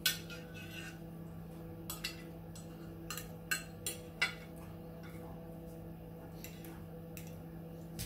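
Metal fork clinking and scraping against a plate as food is scooped up: a handful of short clicks spread through, the sharpest right at the start, over a steady low hum.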